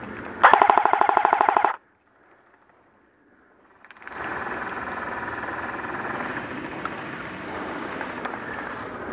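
An airsoft rifle fires one rapid full-auto burst lasting about a second and a quarter, starting about half a second in. Then the sound drops out almost completely for about two seconds, and a steady rustling noise follows.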